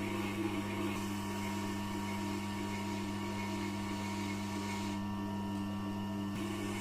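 Electric motor of a leather stropping wheel running with a steady low hum, the folding pocket knife's edge being stropped on the leather; a light hiss over the hum changes about a second in and drops away briefly near the end.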